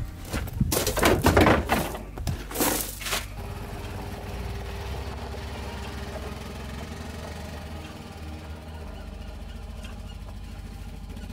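A side-by-side utility vehicle (UTV) setting off across gravel. There are a few loud knocks and clatters in the first three seconds, then its engine runs steadily as it pulls away.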